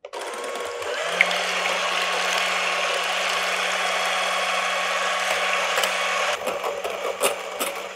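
Electric hand mixer whipping egg whites in a glass bowl, the motor running steadily with a constant hum under the whir of the beaters; at this early stage the whites are only beginning to firm up, before the sugar goes in. Near the end the sound gets a little quieter and uneven, with a few clicks.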